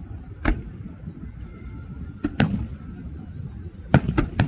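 Fireworks shells bursting in the sky with sharp bangs: one about half a second in, a quick pair about two seconds in, and a fast run of three near the end, over a low continuous rumble.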